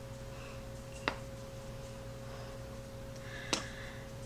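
Two light knocks about two and a half seconds apart over a faint steady room hum, from a plastic measuring scoop tipping powdered sugar into a ceramic bowl and being set back in its glass jar.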